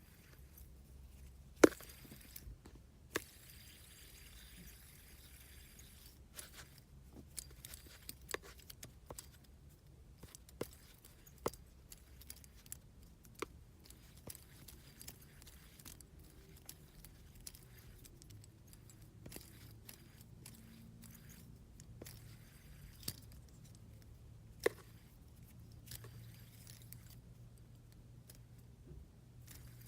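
Metal fidget spinners handled in the hands: scattered sharp metallic clicks and taps, one much louder click about a second and a half in.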